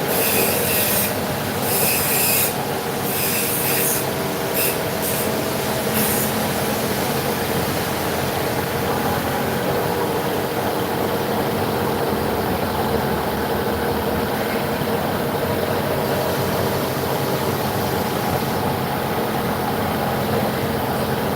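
CNC vertical machining centre running and milling metal: a steady machine hum with several constant tones. Over the first six seconds, short bursts of harsh, high-pitched cutting screech come and go.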